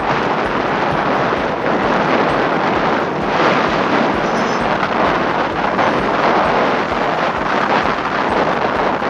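Steady loud rushing noise of wind buffeting the microphone.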